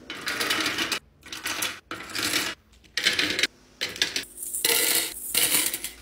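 Small gold metal paper clips clinking and rattling as they are dropped by the handful into plastic drawer trays, in about six short bursts with brief pauses between.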